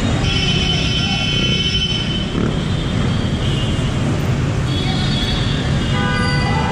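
Dense city traffic heard from a scooter crawling through a jam: steady low engine and road rumble, with several stretches of high steady tones coming and going.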